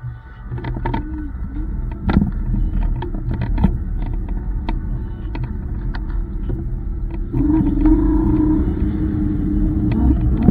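Wind and road rumble on the microphone of a moving electric scooter, with frequent short clicks and knocks. A steady hum joins about seven seconds in.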